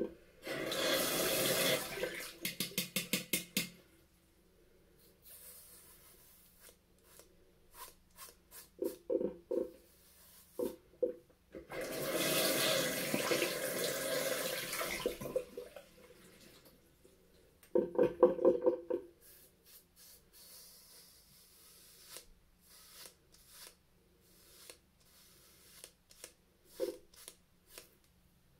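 Mach 3 cartridge razor scraping through shaving foam on a scalp in short strokes, broken twice by a few seconds of running tap water. A quick run of knocks comes at the end of the first stretch of water and again a few seconds after the second.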